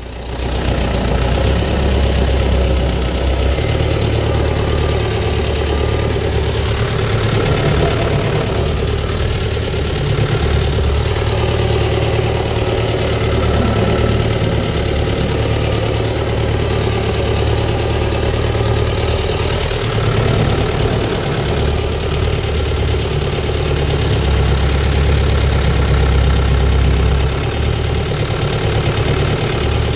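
Tractor's diesel engine running steadily.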